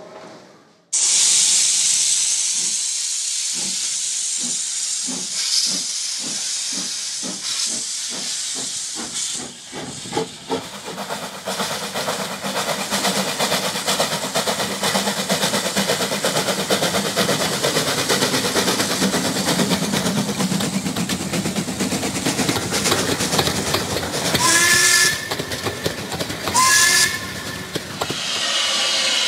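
Robert Stephenson & Hawthorns saddle-tank steam locomotive Agecroft No. 2 working a train: a sudden loud hiss of steam, then exhaust beats that quicken as it gathers speed and merge into steady running. Two short whistle blasts near the end.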